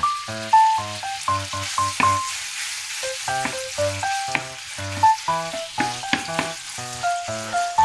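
Sliced beef sizzling in a non-stick frying pan while it is stirred with a wooden spatula, with a few sharp scrapes of the spatula against the pan. Background music, a melody of short notes over a steady bass, plays over it.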